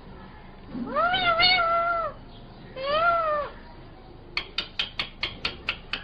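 Rose-ringed parakeet making one long call that rises and then holds, then a shorter arched call. A little past the middle comes a rapid run of short sharp clicks, about five a second.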